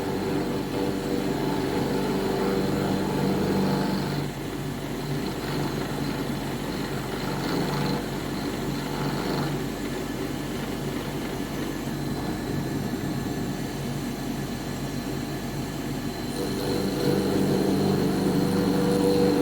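Cron Craft CNC router running with a steady motor hum and whine, louder for the first four seconds, easing off, then louder again from about sixteen seconds in.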